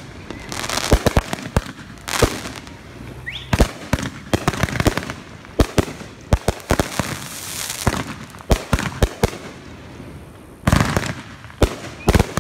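Aerial consumer fireworks going off in quick succession: many sharp bangs and pops with crackling between them, densest near the end.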